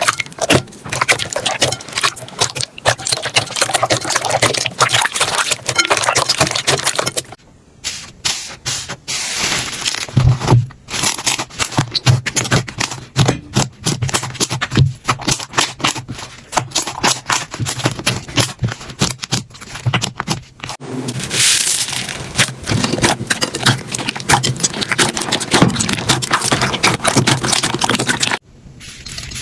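Slime being squeezed, pressed and stretched by hand, giving dense crackling, popping and clicking. The texture changes abruptly about 7, 21 and 28 seconds in as one slime gives way to another.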